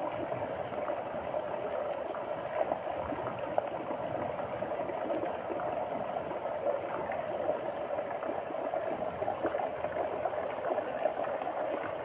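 Floodwater flowing and gurgling in a steady rush, with small irregular splashes.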